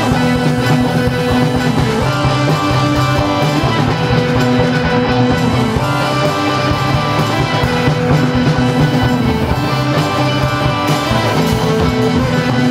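Punk/post-punk rock band music playing steadily: electric guitar over bass and drums, with sustained notes.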